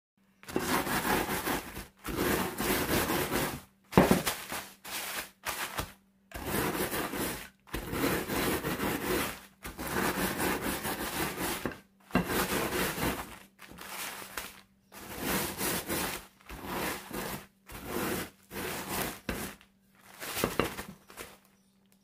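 Wooden rolling pin rolled back and forth over graham crackers in a zip-top plastic bag, crushing them into crumbs: crinkling plastic and crunching crackers in repeated strokes about a second or two long, with short pauses between.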